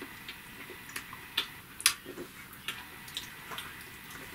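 Irregular small wet clicks and smacks of lips and tongue from people tasting soda; the loudest comes a little under two seconds in.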